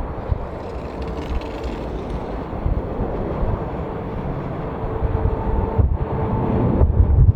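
Jet airliner engines: a loud, steady low rumble with a faint steady whine above it.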